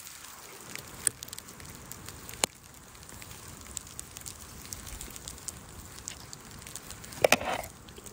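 Campfire crackling, with scattered sharp pops over a steady hiss. Near the end comes a brief clatter, a knife being set down on a camp plate.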